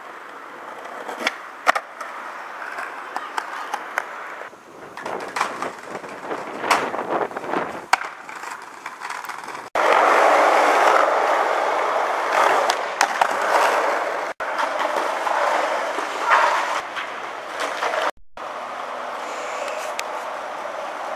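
Skateboards rolling on concrete and asphalt, with sharp wooden clacks from board pops and landings. The sound changes abruptly several times as one clip cuts to the next.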